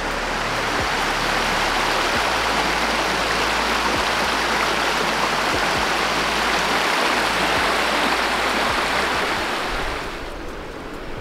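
Shallow river water rushing over stones, a loud steady rush close to the microphone that drops in level near the end.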